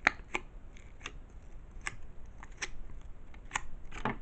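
Sticky slime and its plastic container being handled: scattered sharp clicks and snaps, about six in four seconds, the loudest right at the start.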